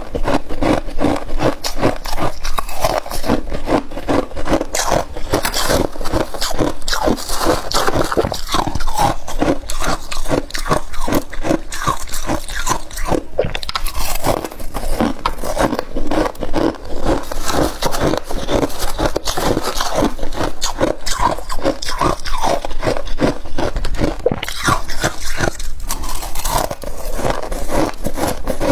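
Freezer frost being scraped and crunched, a continuous, rapid gritty crunching and scraping.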